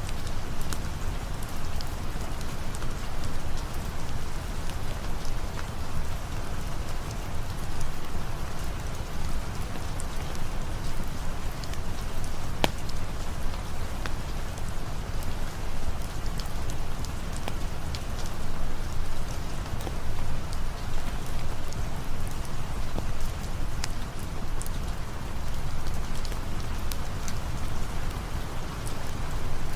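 Steady rain ambience, a dense even hiss, with scattered sharp crackles and drip clicks, one louder about halfway through.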